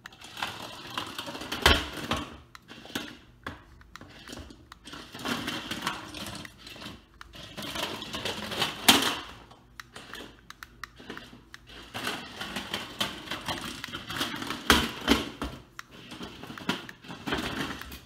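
Remote-control GyroSphere toy, a small motorised mechanism inside a clear plastic ball, rattling and whirring as it rolls across a ceramic tile floor. It bangs into the cabinets and baseboards several times, with sharp plastic knocks about 2 s, 9 s and 15 s in. These are the kind of hits that work the two loosely locked shell halves apart.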